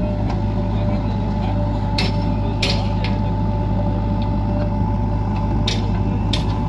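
Heavy diesel engine of a backhoe loader working on site, running steadily as a deep drone with a steady whine above it. Short sharp clacks come in two pairs, one pair a couple of seconds in and another near the end.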